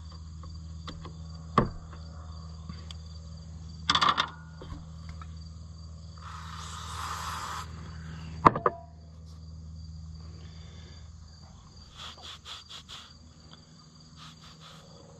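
Metal tractor parts clinking and clanking as they are handled, with a single sharp metallic clank that rings briefly about eight and a half seconds in, and a quick run of clicks near the end. A brief hiss comes about six seconds in, and a steady chorus of insects and a low hum run underneath.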